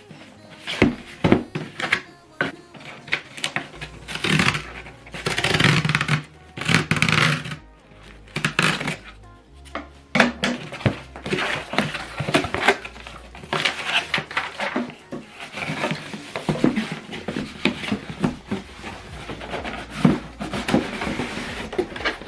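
A package being handled and opened: repeated knocks, clicks and rustling of packaging, with a longer stretch of rustling a few seconds in, over background music.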